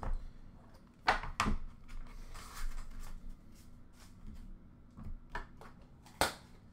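A trading card box being handled, opened and set down: a few light knocks and clicks, the sharpest about a second in and again near the end, with quieter rustling between.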